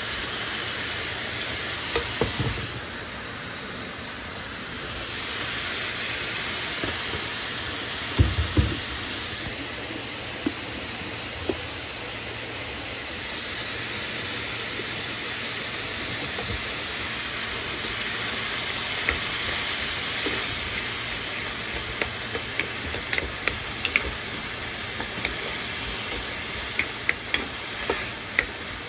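Corn kernels sizzling in a hot frying pan as they are stirred with a plastic spoon: a steady hiss, with a couple of knocks about eight seconds in and scattered clicks of the spoon on the pan that come thicker near the end.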